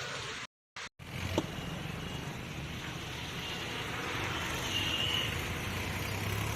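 A car running steadily, with a low engine hum that grows slightly louder toward the end. All sound drops out for about half a second near the start.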